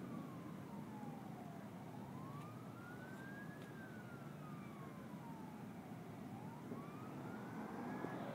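Faint police siren in a slow wail, rising and falling in pitch about every four and a half seconds, over a steady low rumble of traffic.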